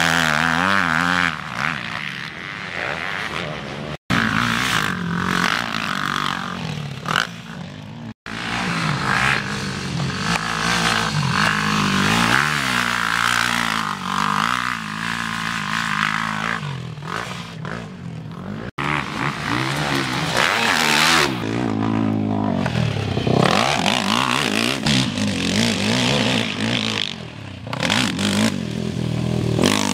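Sport quad ATV engines revving hard and easing off again and again as the quads race over a dirt motocross track, the pitch rising and falling with each throttle change. The sound drops out for an instant three times, at about 4, 8 and 19 seconds in.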